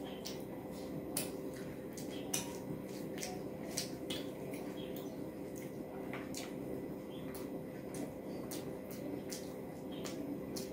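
Close-miked chewing of rice and curry: irregular wet mouth clicks and lip smacks, with fingers squishing rice on the plate, over a steady low hum.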